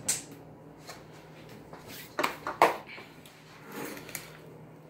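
Dishes being moved and set down on a wooden table: a soft knock at the start, then two sharp knocks close together about two seconds in, the second the loudest.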